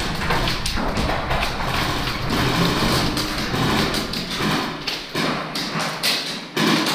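Hurried footsteps and handling knocks as an airsoft player moves through tiled rooms carrying a rifle: a string of irregular thuds and taps with the rattle of gear.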